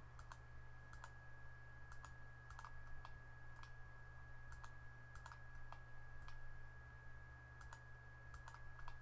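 Faint, irregular clicks of a computer mouse, about a dozen, over a steady high-pitched whine and a low hum.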